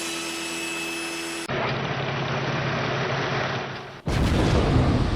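Shop power tools and dust-extraction machinery running, heard in three clips cut together: first a steady motor whine, then a duller steady machine noise with a low hum from about a second and a half in, then a louder rushing rumble from about four seconds in.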